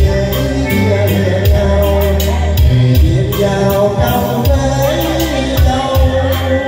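A man singing a Vietnamese song into a microphone over backing music with a strong bass line and a steady beat.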